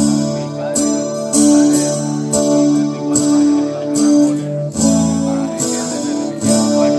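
Acoustic guitar strumming chords in an instrumental break of a song played live, with no singing; the chords change about once a second.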